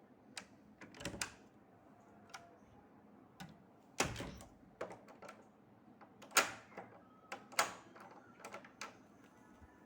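Scattered taps, clicks and knocks of small objects being handled on a hard surface, with a few louder knocks about one, four, six and a half and seven and a half seconds in.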